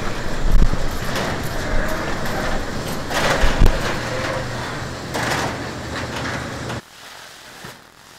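Steel sectional overhead door rolling up on its tracks, driven by an electric opener: a steady motor hum under the rattle of the panels and rollers, with a couple of clunks. It cuts off abruptly about seven seconds in as the door reaches the top.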